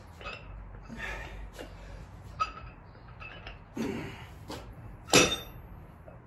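Iron plates on handheld plate-loaded dumbbells clinking, then a loud metallic clank about five seconds in as the dumbbells are set down, ringing briefly.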